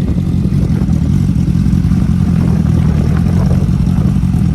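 Motorcycle engine running steadily at a low, even pitch.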